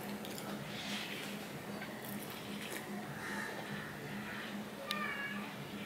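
Quiet close-up sips and a swallow as a drink is taken from a mug, over a low steady hum.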